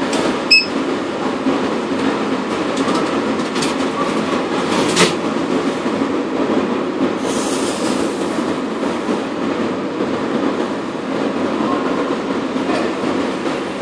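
Steady rumbling din of a parking garage heard from inside the attendant's booth, with a short high beep about half a second in and a brief hiss around seven seconds in.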